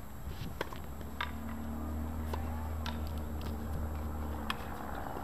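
Tennis balls struck by racquets: sharp pops about every half second to second, over a low steady hum.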